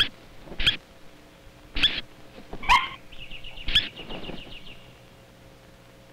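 Spur-winged plover (masked lapwing) screeching: five sharp, loud calls in the first four seconds, with a fast rattling chatter from about three seconds in. These are the alarm and distraction cries of a parent bird diving at a predator to draw it away from its hidden chicks.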